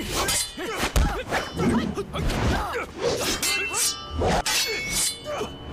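Dubbed sword-fight sound effects: a rapid run of blade clashes with short metallic rings, hits and whooshes, over music.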